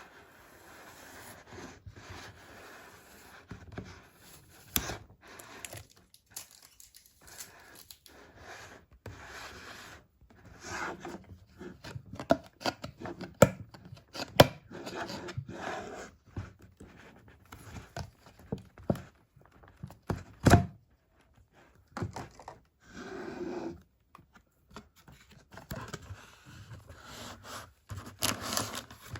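Barbie doll packaging being opened by hand: irregular tearing, crinkling and scraping, broken by sharp clicks and taps.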